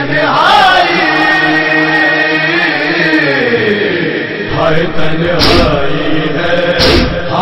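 Men's voices chanting an Urdu noha lament in long, drawn-out notes. Near the end come two loud thumps about a second and a half apart: chest-beating (matam) in unison.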